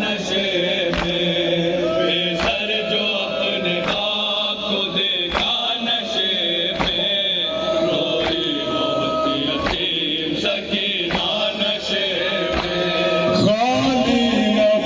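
A male voice chanting an Urdu noha, a Shia mourning lament, in a slow, held melody. A sharp beat falls about every one and a half seconds under the voice.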